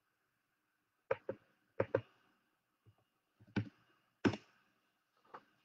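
Irregular clicks and taps, about eight, some in pairs, from typing a short reply on a device.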